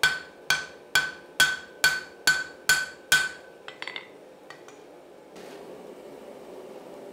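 Blacksmith's hand hammer striking a hot axe head on the anvil: eight ringing blows, about two a second, each with a clear anvil ring. A few light clinks follow as the hammer is laid down on the anvil. About five seconds in, a steady rushing noise begins.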